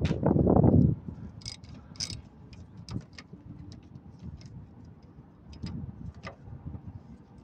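Hand ratchet with a socket extension clicking in scattered short strokes while a nut on the accelerator motor's mounting bracket is tightened. A short low rumble comes right at the start.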